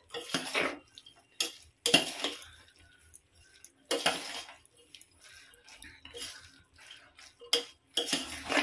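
A ladle stirring and scraping through syrup-soaked boondi in a pot, in a series of uneven scrapes and clinks about a second apart. This is the mixing of the boondi mixture for laddoos.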